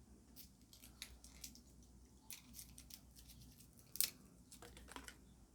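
Faint, scattered clicks and ticks of small objects being handled, with one sharper click about four seconds in.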